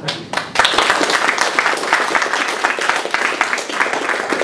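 Audience applauding, many hands clapping: a few scattered claps at first, then full applause from about half a second in.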